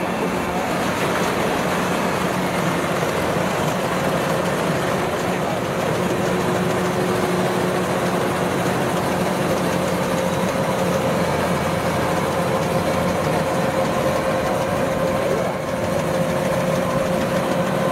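Kubota DC-93 combine harvester running steadily as it cuts and threshes rice: a constant drone of the diesel engine and threshing machinery.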